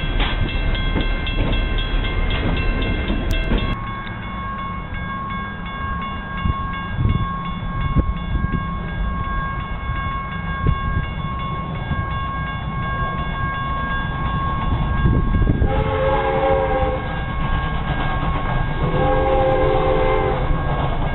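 Steam whistle of 1896 Cooke 4-6-0 No. 2248 blowing two blasts of about a second and a half each, a chord of several notes, over a low rumble. In the first few seconds a passing diesel locomotive runs past.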